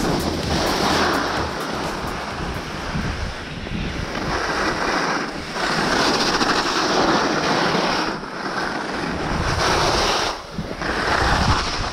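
Alpine skis hissing and scraping over chopped-up snow, swelling and easing every couple of seconds with each turn, with wind rushing over the microphone.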